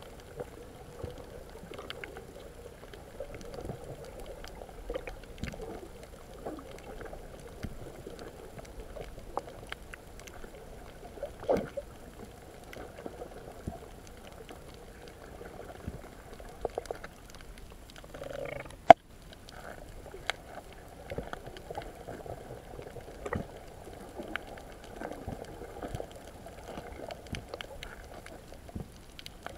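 Underwater sound through a submerged camera: a low, muffled wash of water with scattered clicks and pops, and one sharp click about two-thirds of the way through.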